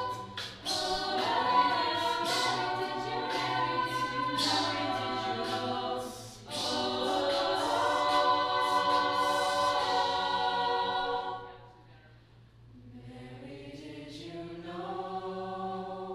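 Mixed teenage a cappella choir singing in close harmony, without instruments. The voices drop away about two-thirds of the way through, then a softer closing phrase swells up.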